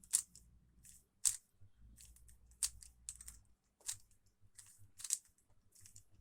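Rubik's cube layers being turned by hand: a dozen or so sharp plastic clicks, irregularly spaced, roughly two a second, as a move sequence is repeated.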